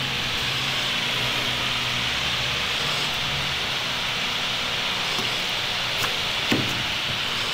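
A steady hiss with a faint low hum underneath, and two light clicks about six seconds in.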